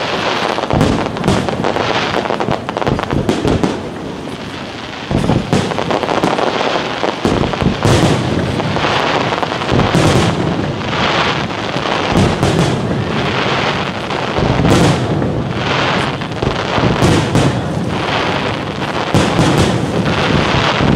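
Fireworks display: aerial shells bursting in quick succession, with sharp bangs over a continuous crackle and a short lull about four seconds in.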